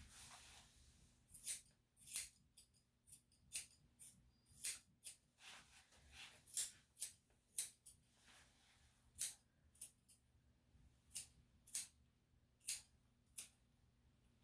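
Grooming scissors snipping through a dog's coat: about twenty short, crisp metallic snips at irregular spacing, with a brief soft hiss at the very start.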